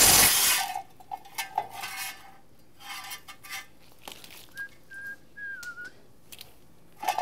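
Cordless impact wrench running briefly at the start as it spins out an 18 mm flex plate bolt, then light metal clinks as the loosened bolts are handled. A few whistled notes come about halfway through.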